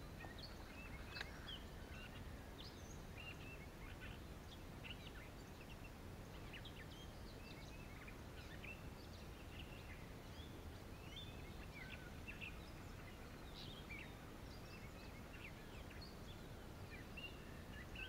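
Faint birdsong: many short, scattered chirps and song notes from birds around the pond, over a steady low outdoor background rumble.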